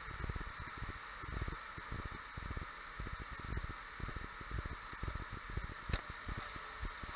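Ride down an enclosed tube water slide: a steady hiss of rushing water with irregular low rumbling thumps as the rider slides and bumps along the tube, and one sharp click about six seconds in.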